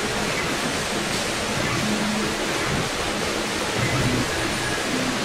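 CNC router running, with its gantry and head moving: a steady hiss, with low hums that change pitch in steps.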